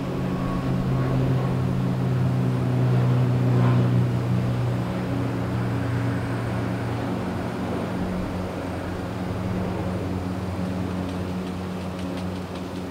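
Jet airliner engines running, a steady low drone that swells to its loudest about four seconds in and then slowly eases off.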